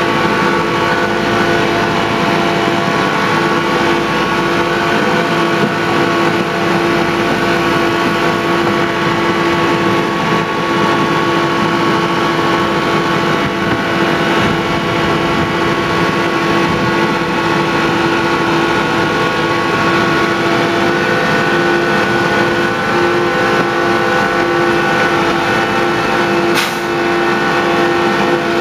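Miniature railway diesel locomotive running steadily under way, heard from the cab: an even engine note with wheel and track noise. A single sharp click comes near the end.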